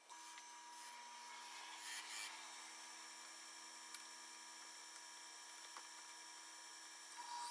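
Wood lathe running steadily with a hum and a thin whine, spinning a wet bowl blank, with a couple of short scraping noises about two seconds in.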